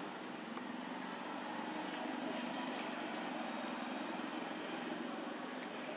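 Steady outdoor background noise with a low, even hum and no distinct events.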